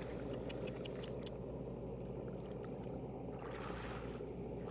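Rice harvester's engine running steadily with a constant low drone, with a few faint ticks in the first second or so.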